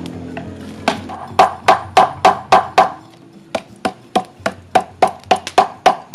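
A machete striking the end of a wooden stick laid on a log, a run of sharp wooden knocks about three a second that turn quieter and a little quicker about halfway through, fraying the stick's end into fibres for a basting brush.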